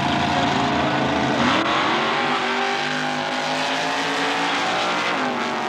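Two drag racing vehicles launching off the start line, engines revving hard. The engine pitch dips and then climbs steeply about a second and a half in as they pull away, and drops and climbs again near the end.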